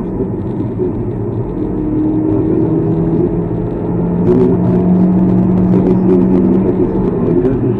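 Car driving at highway speed, heard from inside the cabin: steady engine and tyre rumble. Through the middle come a couple of low held tones.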